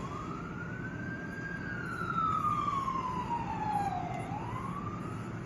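A siren wailing: one tone rising slowly, sliding down over about three seconds, then starting to rise again near the end.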